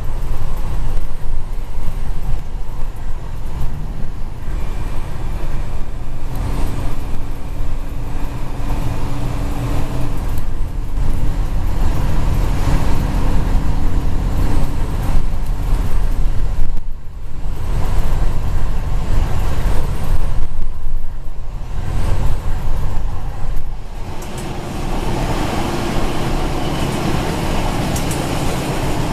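X305 diesel railcar running along the track, heard from inside the driver's cab: a continuous low engine and running rumble. It turns quieter and steadier about 24 seconds in.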